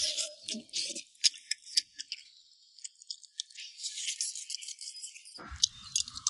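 Eating sounds: a run of small, sharp clicks and taps of utensils against a bowl, sparser in the middle and busier again later, with a soft low thump near the end.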